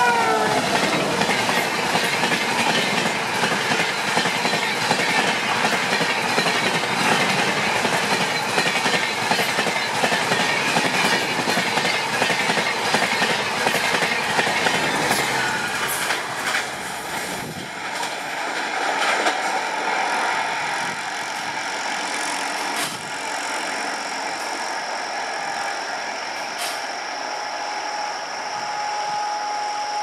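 Horn of a WAP-7 electric locomotive, its last note dropping in pitch as the engine passes. Then the LHB coaches of the Rajdhani Express rush by at speed, wheels clickety-clacking over the rail joints for about sixteen seconds. The noise then falls away as the train recedes, with a faint steady tone near the end.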